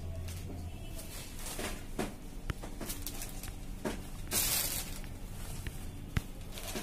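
Sarees being handled and spread out by hand on a shop counter: soft cloth rustling and scattered light taps, with one louder rustling swish about four and a half seconds in.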